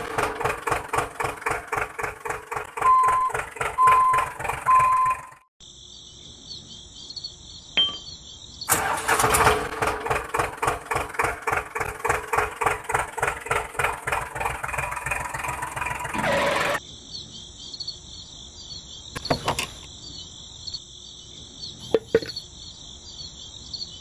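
Tractor engine running with an even, steady chug, with three short horn beeps about three seconds in; it stops at about five seconds, starts again near nine seconds and cuts off around sixteen seconds. In the gaps and toward the end a steady high-pitched chirring carries on, with a couple of light clicks.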